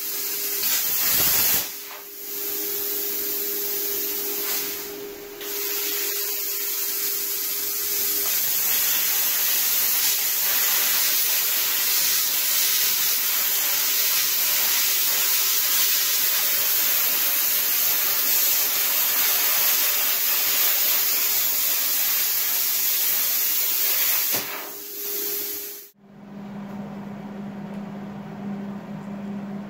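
Handheld plasma cutter cutting steel plate: a loud, steady hiss of the cutting air jet, broken briefly twice in the first few seconds. It stops about 25 seconds in, and a quieter, lower steady hum follows.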